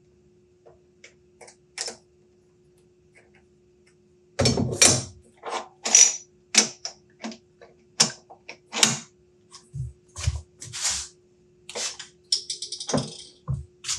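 Steel lathe tooling being handled: quick-change tool holders and parts clanking and clicking against the tool post and carriage, in an irregular run of sharp metal knocks starting about four seconds in, with a brief ratcheting rattle near the end. A faint steady hum sits underneath.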